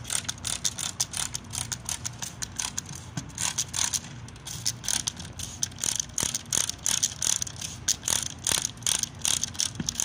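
A plastic trigger spray bottle squirting water in quick repeated pumps, about three to four a second. Each pump is a short hiss of spray with the click of the trigger.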